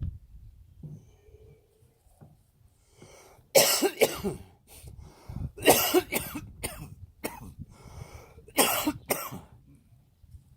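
Coughing: a run of sharp, loud coughs in a few clusters, starting a little over a third of the way in.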